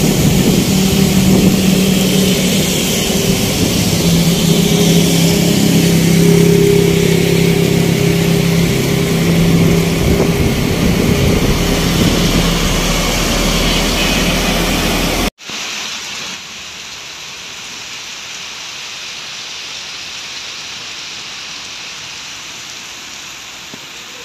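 Heavy rain hissing steadily, with a heavy tanker truck's engine running close by through the first part. About fifteen seconds in the sound cuts off abruptly to quieter, steady rain falling.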